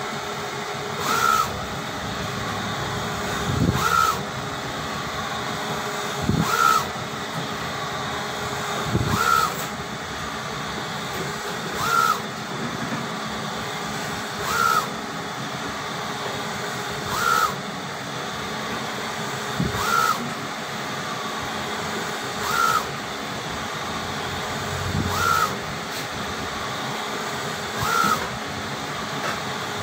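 UV flatbed printer running while printing on acrylic: steady machine hum from the carriage and fans, with a short high chirp repeating about every 2.7 seconds as the print head makes its passes.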